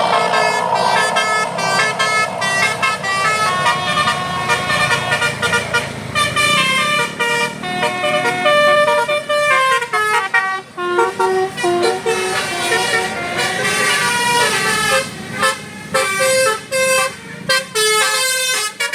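Bus telolet horn of the Basuri type playing a tune: a quick run of stepped horn notes, with short breaks between phrases in the second half, cutting off at the end.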